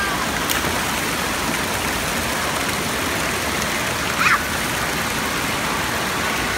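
Steady rushing of water from the fountains and sprays of an indoor water park's shallow play pool, with a brief louder sound about four seconds in.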